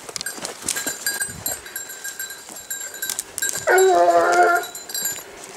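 A hunting hound baying once, a single held call of just under a second about four seconds in, over the crackle of footsteps and brush in the undergrowth.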